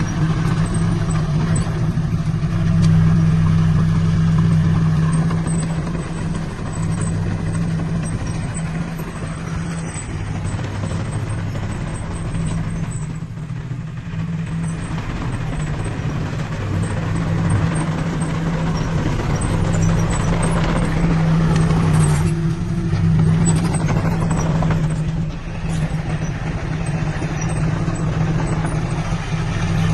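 Diesel engine of a heavy earthmoving machine running steadily under work, with a low hum that swells and eases slightly.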